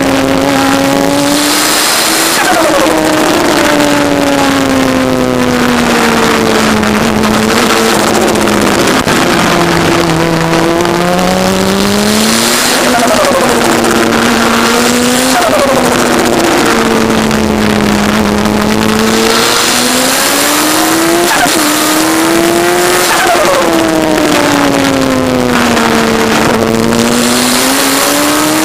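In-car sound of a turbocharged Kawasaki ZX-10R inline-four motorcycle engine in an MK Indy kit car driven on track: the engine note jumps up sharply and then slides down over several seconds, again and again, as the car speeds up and slows for the corners. Wind noise rushes over the microphone throughout, swelling now and then.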